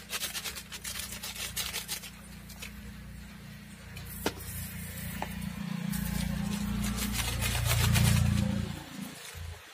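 A steel ladle stirring chicken pieces and masala powder in a metal pan over a wood fire, with irregular clicks and scrapes. A low rumble builds through the second half and is loudest near the end.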